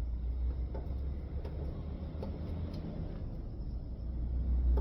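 A few faint, scattered clicks and ticks of hand tools working screws on an air conditioner's sheet-metal housing, over a steady low rumble.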